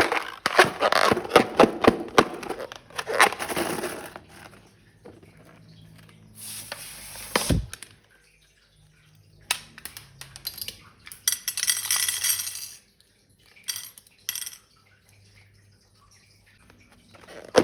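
Rapid clinks and taps of small hard objects, dense for the first few seconds and then sparser, with a couple of short hissing bursts partway through.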